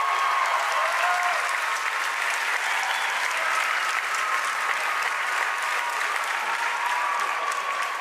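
Audience applauding, a dense clatter of clapping, with high, drawn-out cheers and whoops held over it.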